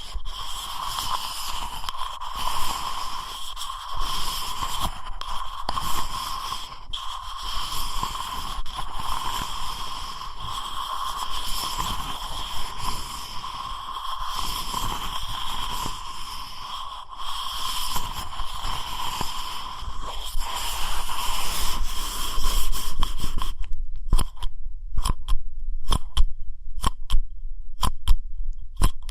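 Ear-cleaning ASMR sounds: a dense, continuous scratching and rubbing of an ear pick in a microphone's ear. About three quarters of the way through it switches abruptly to crisp separate clicks, several a second.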